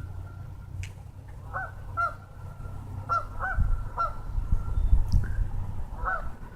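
Birds honking outdoors: short, arched calls repeated roughly once a second, some in quick pairs, over a steady low rumble.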